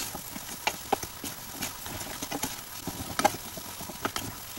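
Flat spatula stirring a thick cashew fudge mixture in a stainless steel pot, with irregular scrapes and knocks against the pot about two or three times a second over faint sizzling of ghee, as the water cooks off.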